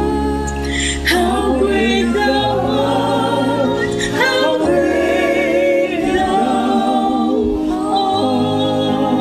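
A worship song: voices singing phrases with vibrato over held low chords.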